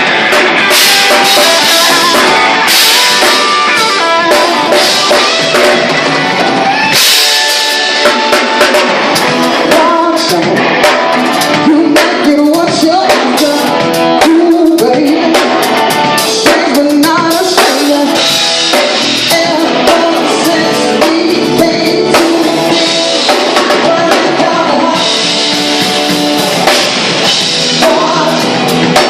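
Live funk band playing loudly during a sound check: drum kit and guitar with a singer's voice over them.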